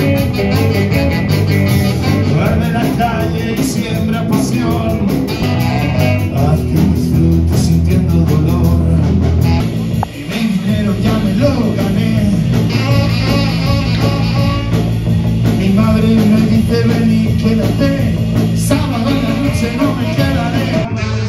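Band music with guitar and singing in a blues-rock style. It changes abruptly to a different passage about ten seconds in.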